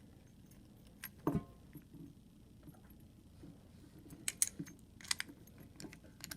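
A dimple key and a Reece 10-pin dimple padlock handled: scattered sharp metallic clicks and key jingling as the key goes in and the lock is opened, with one louder click and thud about a second in.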